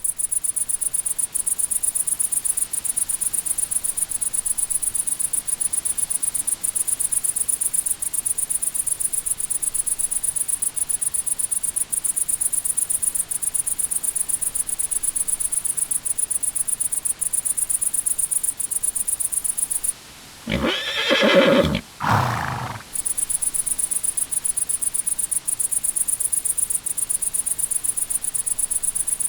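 Crickets chirping in a steady, rapid, high-pitched pulse. About 20 s in the chirping breaks off and a horse whinnies loudly for about two seconds in two parts, then the crickets resume.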